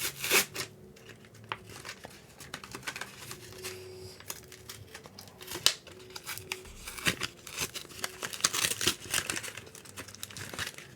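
Yu-Gi-Oh! card blister pack packaging being opened by hand: irregular crinkling and tearing of the foil and plastic wrapping, busiest near the end.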